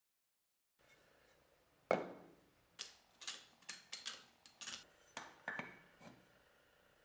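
Knocks and light clinks of a steel axe head and a wooden handle blank being handled and set against each other on a workbench: one sharp knock about two seconds in, then a quicker run of taps and clicks.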